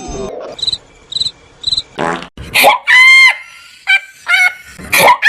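A cricket chirp sound effect, three short high chirps about half a second apart, the cartoon 'crickets' cue for an awkward silence. It is followed from about two seconds in by a louder run of short, high-pitched squeaky cries that bend up and down in pitch.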